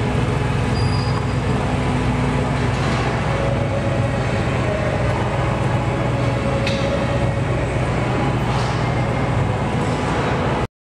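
Steady low rumble of a large exhibition hall's background noise with faint voices mixed in, cutting off abruptly near the end.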